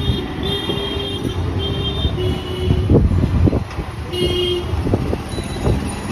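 Street traffic with a vehicle horn honking in several short toots over a steady low rumble. A few sharp knocks about halfway through.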